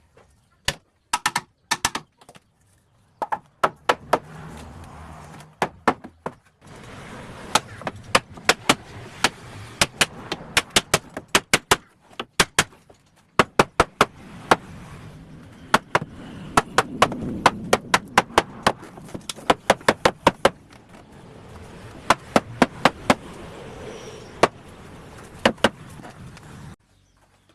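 Wooden door being assembled: many sharp knocks on wood in quick runs of several blows, with short pauses between runs.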